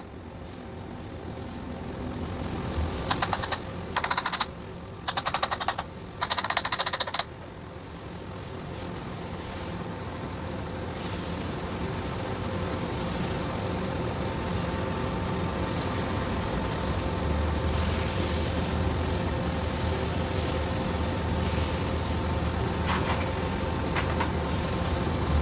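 Several short bursts of rapid mechanical rattling in the first seven seconds, over a steady machine hum that grows louder through the rest of the stretch.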